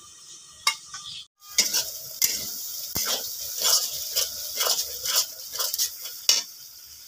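Metal spatula stirring and scraping a thick onion, tomato and spice masala in a hot pan, with repeated scrapes over a steady sizzle. The masala is being fried down (kosha), with the tomatoes cooked soft. The stirring starts about a second and a half in.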